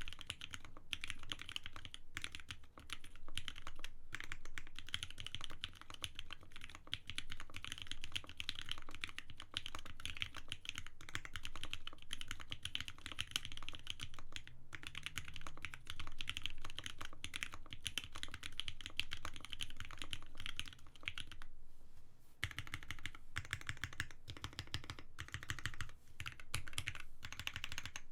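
Continuous fast typing on a Bear65 65% Alice-layout custom mechanical keyboard with lubed Lavender switches, a polycarbonate plate and silicone gaskets. Foam in the case gives the keystrokes a deep, thocky sound. The typing stops briefly about three quarters of the way through.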